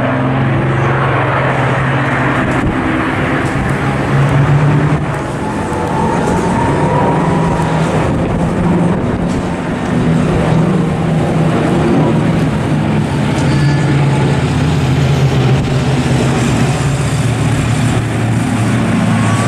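Four piston-engined propeller fighter planes flying over in formation: a steady, loud engine drone, the several engines giving overlapping low tones that drift slightly in pitch. The drone dips briefly about five seconds in and again near ten.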